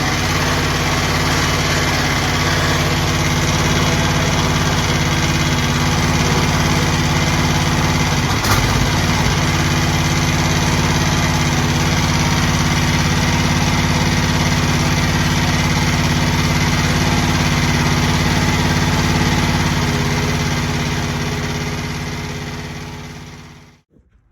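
Engine of a homemade mini skid steer running steadily at idle, with a brief knock about eight seconds in. The sound dies away over the last few seconds.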